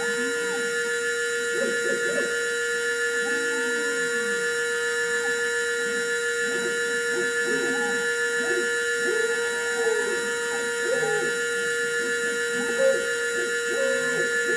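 Desktop CNC mill cutting green carving wax: the high-speed spindle gives a steady high-pitched whine, while the axis motors add whines that rise and fall in pitch as the rotary cradle and slides move the part.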